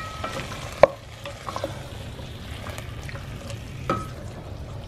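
Wooden spoon stirring diced tomatoes, carrots and onions in a stainless steel pot, over a steady low sizzle of the vegetables frying. The spoon knocks against the pot about a second in and again about four seconds in.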